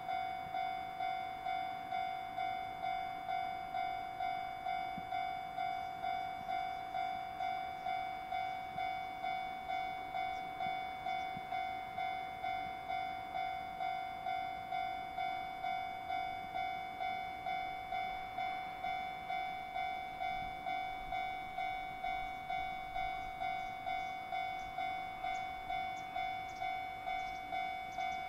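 Railway level-crossing warning bell ringing steadily, an evenly repeated ding about one and a half times a second, signalling a train approaching on the line. Faint rail ticks from the approaching train come in toward the end.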